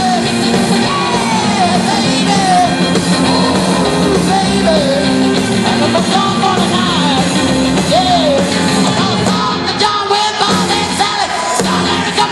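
Live rock and roll band playing in a hall: drums, bass and electric guitars, with a lead line of notes bending up and down over the band.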